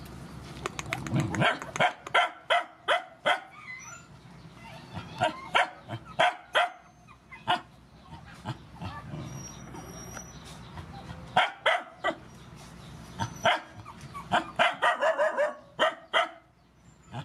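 Dogs barking in short volleys of several quick barks each, with pauses of a second or two between volleys.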